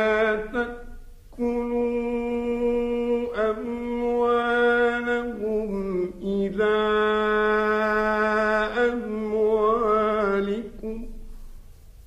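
Male Quran reciter chanting Quranic verses in the melodic mujawwad style, with notes held for seconds at a time in several long phrases, fading out near the end.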